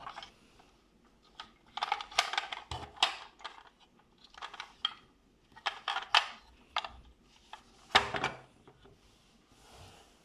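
Hard plastic toy bulldozer being handled and worked: irregular clicks and clatters of plastic parts in several short bursts, the loudest about eight seconds in.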